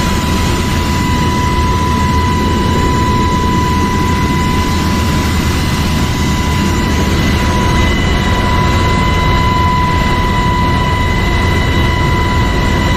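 Helicopter hovering, heard from inside the cabin with the door open: a loud, steady rush of rotor and engine noise with a steady high whine running through it.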